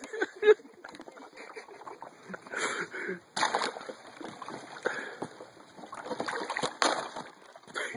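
Thin puddle ice cracking and breaking under rubber boots, with water splashing underneath, in a run of uneven steps. The sharpest cracks come about half a second, three and a half and seven seconds in.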